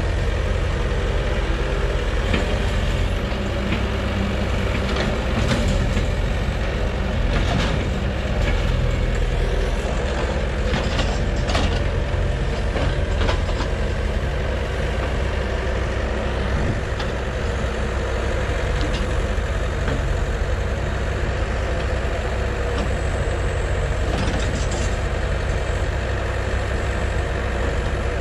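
Tracked excavator with a log grapple, its diesel engine running steadily as it handles logs, with scattered knocks as the logs are lifted and set down.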